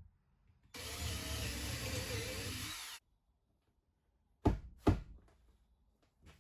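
A power tool runs for about two seconds, its pitch wavering, and cuts off abruptly. A little later come two sharp knocks about half a second apart.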